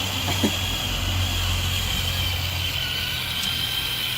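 Small electric motor of a cheap toy RC car running with a steady high whine as its tireless wheels spin in a burnout.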